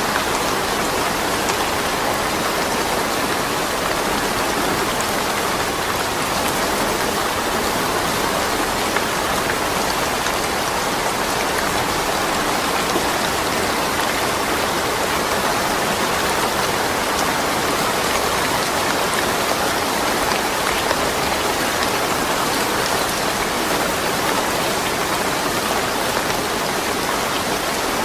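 Steady rain falling, an even hiss with the patter of drops on surfaces and no thunder.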